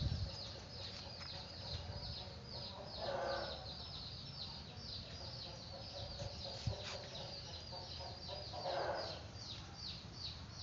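Aseel chickens: two short calls, about three and nine seconds in, over a constant fast high-pitched chirping.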